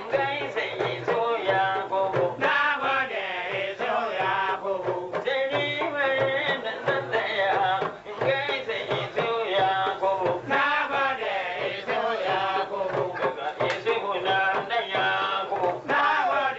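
A man sings a Hausa praise song into a microphone, his voice wavering and ornamented, over a steady beat from kalangu talking drums.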